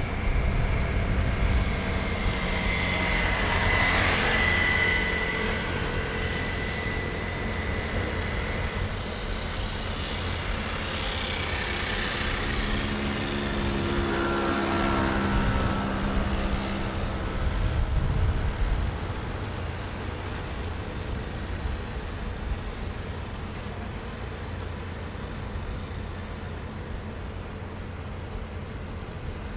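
Fishing-harbour ambience: a steady low rumble of engines, with faint whining tones that rise and fade over the first half and a few louder swells about 4, 12 and 18 seconds in.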